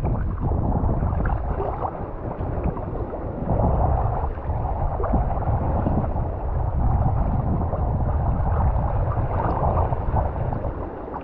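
Choppy water sloshing and gurgling against a camera held right at the waterline, with wind buffeting the microphone.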